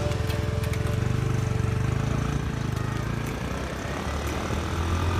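Motor vehicle engine droning steadily, with noise from air rushing past; its pitch drops a little about three and a half seconds in.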